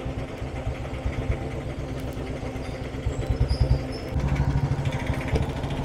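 Motorcycle engine running while riding, a steady low pulsing exhaust note that grows a little louder about four seconds in.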